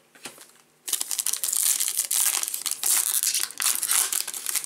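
Trading-card pack wrapper crinkling and tearing as it is ripped open, starting about a second in and continuing as a dense, loud crackle.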